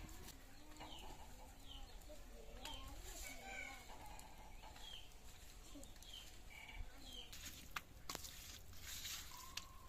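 Faint chickens clucking and small birds chirping in the background, repeating every second or so. Near the end come a few short noisy strokes as hands mix turmeric-coated fish pieces in a steel bowl.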